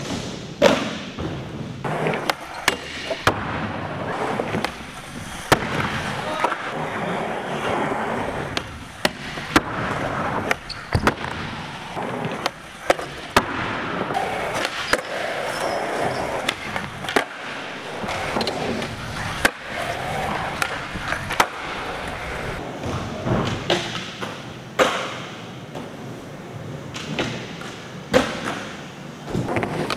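Skateboard wheels rolling over smooth skatepark ramps, with many sharp clacks of the boards: tail pops, landings and board impacts, spread irregularly throughout.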